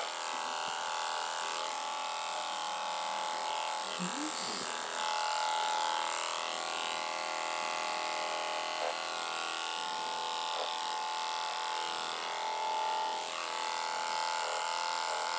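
Electric dog-grooming clipper buzzing steadily as it trims the short hair on a miniature schnauzer's ears.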